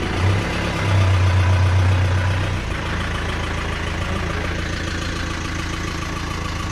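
Vehicle engine idling with a steady low hum, louder for a second or two near the start before settling back to an even idle.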